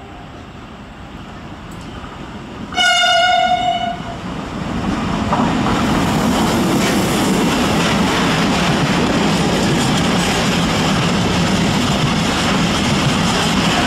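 Siemens Eurorunner ER20 diesel-electric locomotive sounding its horn in one blast of just over a second, about three seconds in. It then passes close by with its engine running, followed by a string of tank wagons rolling past.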